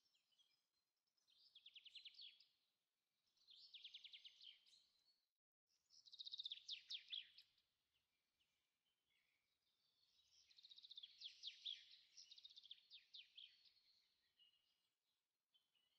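Faint birdsong: a small songbird's rapid trilling phrases, repeated every two or three seconds, cutting out completely for a moment about five seconds in.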